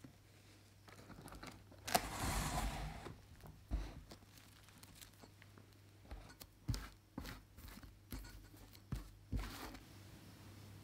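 Plastic cling film pulled off its roll with a rasp about two seconds in, then crinkles and light taps as it is pressed over a foil cake board, and a short tearing rasp near the end as the sheet is cut off.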